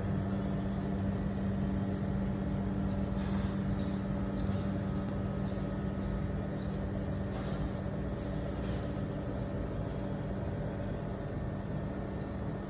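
Insect chirping steadily, a short high chirp about twice a second, over a steady low hum.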